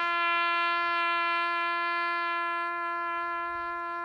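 A solo brass instrument holding one long, steady note.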